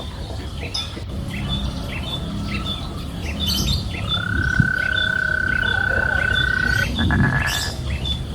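A bird chirping over and over, about two short chirps a second, against a low steady background noise. About halfway through, a steady high whistle-like tone starts and holds for nearly three seconds.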